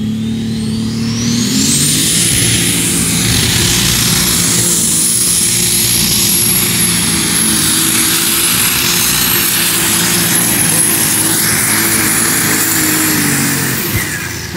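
Pulling tractor's engine run hard under load while it drags a weight-transfer sled. A high whine climbs steeply in the first two seconds and then holds steady with the engine, and both ease off near the end as the run finishes.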